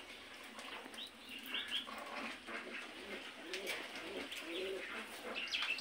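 Budgerigars chirping in short, high calls, with several low cooing calls mixed in through the middle of the clip.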